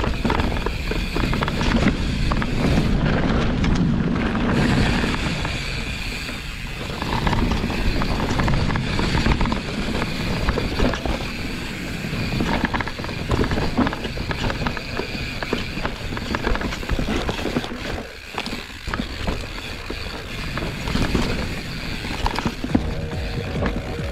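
Mountain bike ridden on a dirt trail: tyre noise with frequent rattles and clatter from the bike over bumps, and wind rumbling on the microphone.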